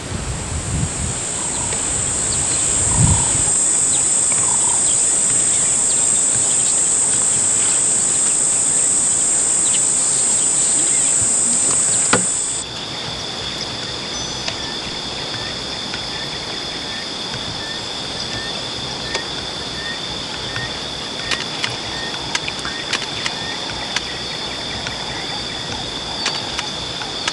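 Steady high-pitched insect drone that cuts off abruptly about halfway through, replaced by a lower, steady insect trill. A small chirp repeats regularly over it, about every two-thirds of a second, with a few faint clicks.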